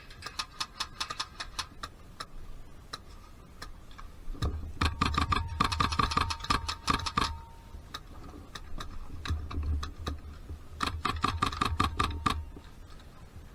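Airsoft gun firing. A quick string of evenly spaced shots at the start is followed by two longer rapid bursts of rattling shots, about four and eleven seconds in.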